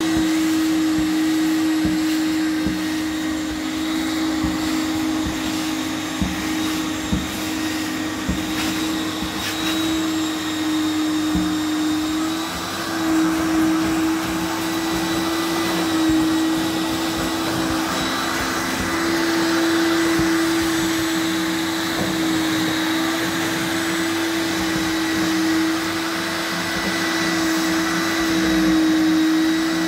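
Single-disc rotary floor scrubber shampooing a carpet and a wet vacuum sucking at its fringe, both motors running together steadily with a constant hum.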